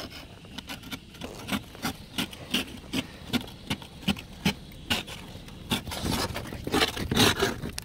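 Thick, hard ice being scraped off a car's body in short, repeated strokes, about two to three a second, then louder, longer scrapes near the end.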